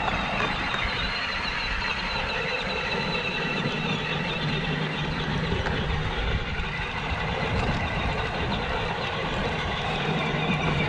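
Children's Power Wheels ride-on car driving on its stock battery, before the speed upgrade: the electric drive motors and gearboxes give a steady whine over a low rumble.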